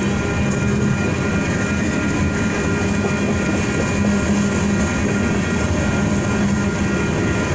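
Freight train cars, tank cars and covered hoppers, rolling past on the rails with a steady rumble and wheel noise. Several steady high tones run through it.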